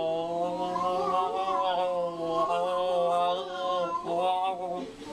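A man's voice imitating a cat: one long, wavering, low yowl held for about four seconds, broken briefly near the end and then starting again.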